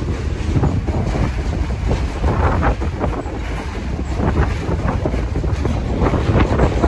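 New York City subway train running: a continuous low rumble with irregular wheel clatter, and wind buffeting the microphone.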